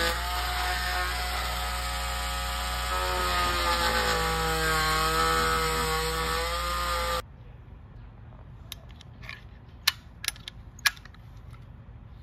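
Porter-Cable oscillating multi-tool running with its blade plunging into drywall, its whine rising and falling in pitch as the load changes. It stops abruptly about seven seconds in, followed by a few sharp clicks.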